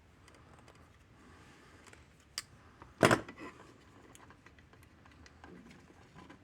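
Handling noise from parts of an electric fence energizer being fitted back together: faint small clicks and taps, a sharp click a little over 2 s in, and one louder knock about 3 s in.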